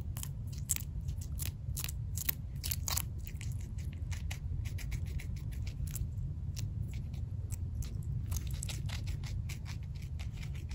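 Guinea pig biting and chewing a piece of raw green pepper: quick crisp crunches, thickest in the first three seconds and thinning out toward the end.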